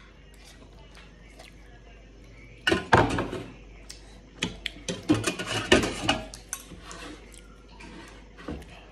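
A metal fork clinking and scraping against a steel plate, in a quick run of clinks from about three seconds in, lasting a few seconds.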